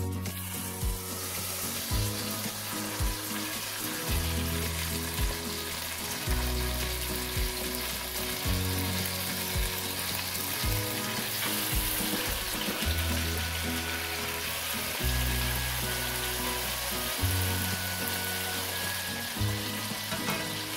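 Chicken leg quarters sizzling as they sear in hot olive oil and butter in an enameled Dutch oven, a steady frying hiss that starts as the meat goes into the pan. Background music plays underneath.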